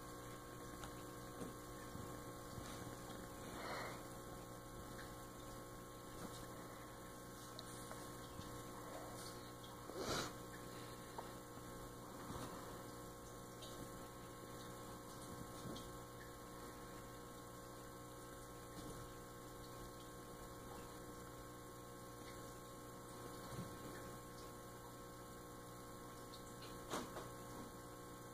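Low, steady electrical hum, with a few faint, brief sounds over it; the loudest comes about ten seconds in and another near the end.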